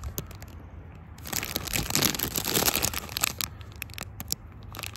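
Clear plastic bag crinkling and rustling as it is handled, with scattered small clicks. It is loudest for about two seconds in the middle.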